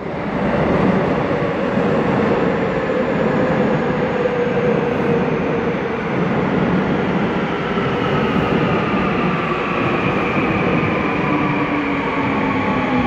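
Seoul Subway Line 2 electric train pulling into an underground station: a steady, loud rumble of the train with several whines that fall slowly in pitch as it slows.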